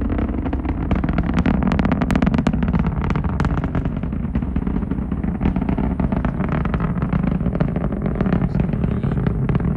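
Falcon 9 first stage's nine Merlin engines heard from the ground during ascent: a steady low rumble with dense crackling running through it.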